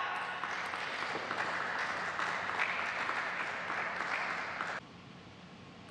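Applause, a steady patter of clapping right after a table tennis point is won, which cuts off abruptly about five seconds in.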